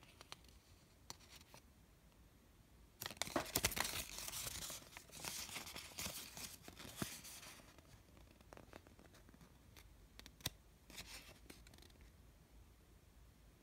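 Folded paper inserts from a gashapon capsule being handled and unfolded: a stretch of crinkling, rustling paper from about three seconds in to about eight, then another short rustle near eleven seconds.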